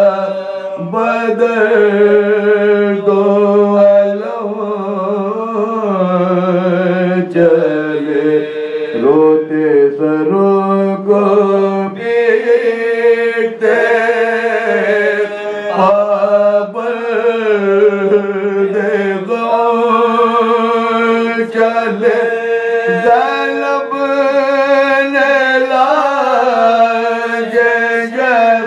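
Soz khwani: a group of men chanting an Urdu lament for Muharram without instruments, the lead voice carrying a slow wavering melody over a low note held steadily beneath it.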